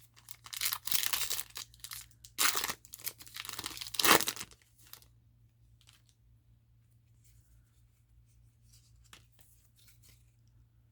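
A foil trading-card booster pack wrapper being torn open and crinkled, in several rustling bursts over the first five seconds, followed by only faint handling clicks.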